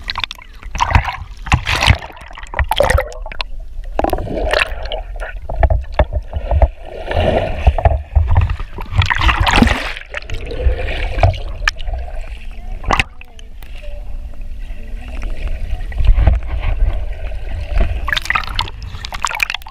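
River water sloshing and splashing against a waterproof camera held at the surface, with a constant low rumble of water buffeting the housing, muffled gurgling when the camera dips underwater, and a few sharp knocks.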